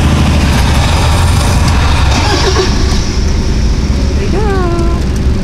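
Deep, steady engine rumble as the V12 LS-swapped Kia Pregio van pulls away, heard from inside the car following it.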